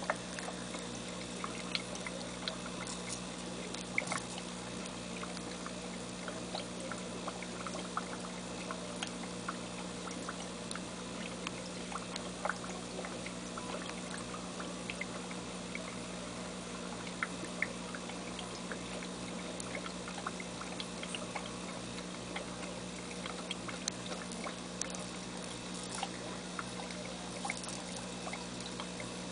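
Aquarium water trickling and bubbling steadily over a steady low hum, with many small scattered ticks and pops.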